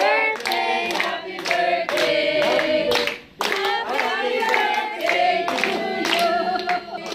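A group of adults singing together while clapping in time, with a brief break in the singing about three seconds in.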